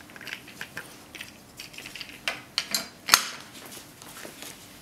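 Metal clinks and knocks as a steel U-type hook and wheel plate are fitted against the sheet-metal fins of an Orpat oil heater: a few light clicks at first, then a cluster of sharper clinks past the middle, the loudest a little after three seconds in.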